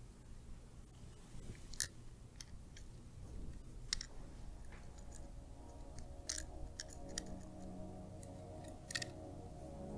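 Small, sparse metal clicks and ticks of a tiny hex key and button-head screws being worked into a diecast toy car by hand. A faint steady tone comes in about halfway.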